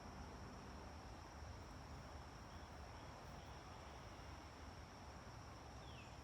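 Near silence with a faint, steady, high-pitched buzz of insects. A few faint short falling chirps come near the end.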